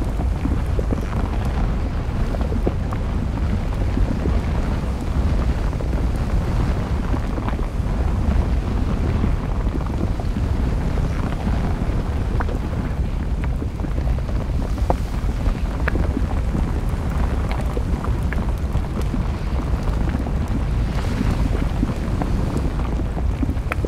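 Volcanic eruption rumbling steadily: a deep, even roar with faint scattered crackles, mixed with wind buffeting the microphone.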